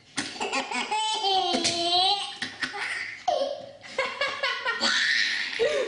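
A baby laughing hard in repeated high-pitched, squealing bursts, set off by someone's sneezing.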